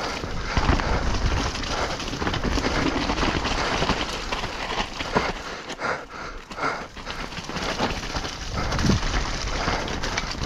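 Downhill mountain bike ridden hard over a wet, muddy trail, heard from a camera on the rider: tyres churning through mud with the bike rattling and knocking over bumps, easing briefly about six seconds in.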